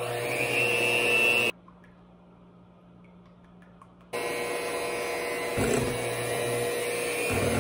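Electric hand mixer running in a bowl of cupcake batter: a short burst of about a second and a half, a pause, then it starts again about four seconds in and runs on steadily.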